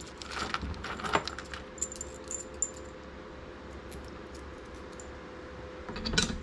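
Small mounting hardware, bolts and washers, clinking and rattling as it is handled and fitted: scattered light ticks in the first few seconds, a quieter stretch, then a few more clinks near the end, over a steady faint hum.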